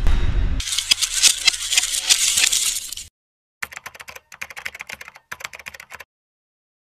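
Channel intro sound effects: a dense run of sharp clicks and rattles for about two and a half seconds, then after a short gap a quieter patter of keyboard-typing clicks as a tagline is typed out letter by letter.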